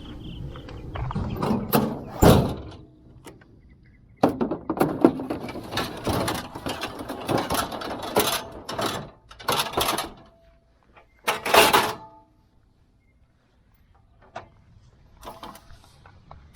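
Bursts of scraping, rustling and clunking from hands working at a dryer vent to clear out a bird's nest, ending after about twelve seconds in a few faint knocks.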